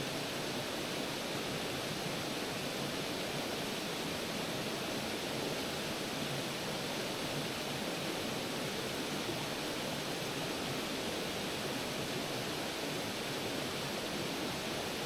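A creek and its small waterfall running, a steady even rush of water.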